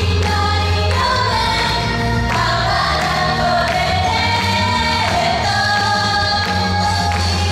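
Japanese idol pop song: several young women singing together over a pop accompaniment with a bass line that changes note about once a second.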